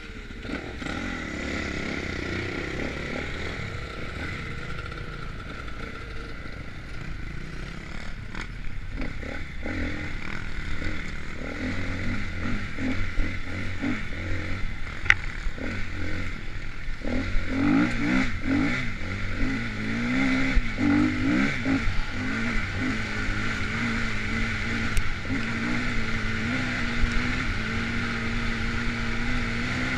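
Dirt bike engine running under way, its pitch rising and falling with the throttle.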